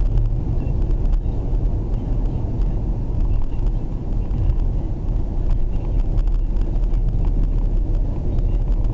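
Steady low rumble of engine and tyre noise inside the cabin of a car driving at road speed.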